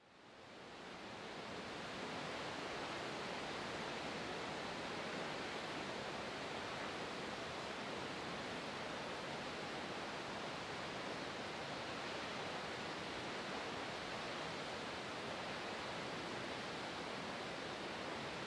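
Lower Yosemite Fall: the steady rushing noise of a large waterfall. It fades in over the first two seconds, then holds even.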